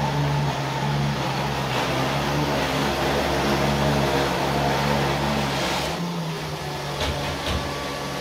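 Robot vacuum cleaner running, a steady whir from its suction fan and brushes over a low hum. About six seconds in it grows quieter, and two light clicks follow.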